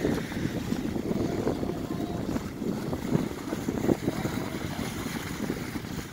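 Wind buffeting the microphone over small waves washing onto the shore, with irregular splashing as horses wade through the shallow water.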